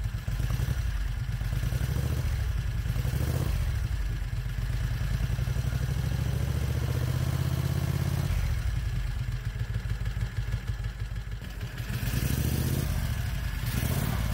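Predator 670 cc V-twin engine idling steadily at a lowered idle speed, made possible by the removal of its compression release mechanism.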